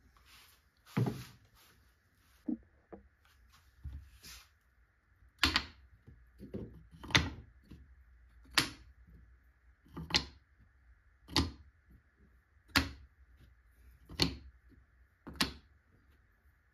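Repeated sharp wooden knocks: a few scattered clacks, then a regular series of about one every second and a half.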